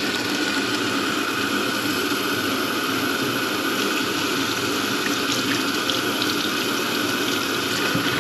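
Kitchen tap running steadily into the sink.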